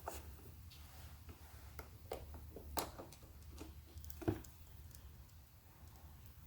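Faint scattered clicks and taps of small plastic parts and a screwdriver as screws are refitted into a car's power window switch, with two sharper clicks about three and four seconds in, over a low steady hum.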